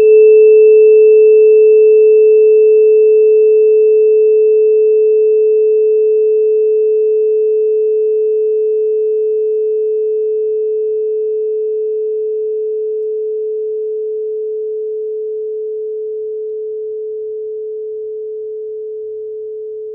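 A single pure ringing tone at a middle pitch, with a faint high overtone, sounding once and fading slowly and evenly over about twenty seconds before it stops.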